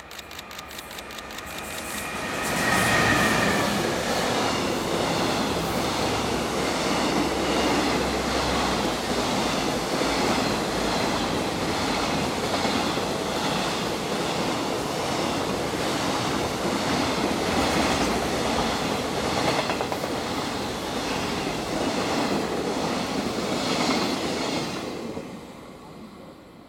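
Electric-hauled container freight train passing at speed. The locomotive arrives loudly about two and a half seconds in, then a long string of container wagons follows with a steady rumble and clickety-clack of wheels over the rail joints. It fades away near the end as the last wagon passes.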